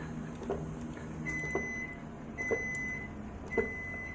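A person gulping water from a large plastic bottle, about one swallow a second. A steady electronic beep repeats about once a second alongside the swallows, starting about a second in.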